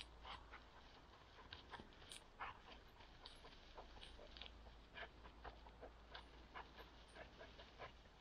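Faint, irregular crackles and rustles of dry, brittle weed stalks being pushed through, a few snaps a second.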